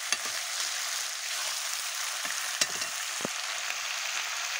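Buffalo meat frying in oil in a metal karahi, sizzling steadily, with a few sharp clicks of a metal spoon scraping and knocking the pan as the meat is stirred.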